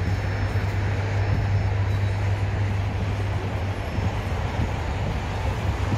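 Steady low engine hum with a constant wash of outdoor noise.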